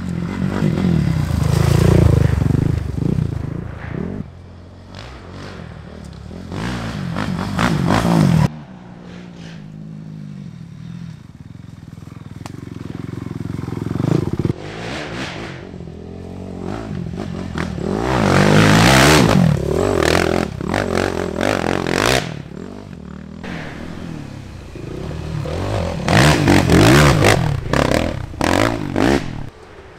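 Race quads (ATVs) revving hard as they pass close by one after another, engine pitch rising and falling with the throttle. The sound swells with each pass and cuts off abruptly twice between passes.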